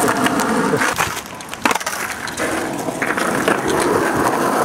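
Skateboard wheels rolling over rough asphalt, a steady gritty rumble that eases off for a moment and comes back stronger. There is one sharp click about a second and a half in.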